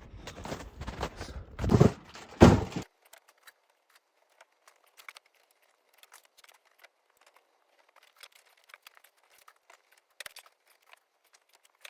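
Rustling and scraping handling noise with two heavy knocks about two seconds in. Then it suddenly drops to faint, scattered small clicks.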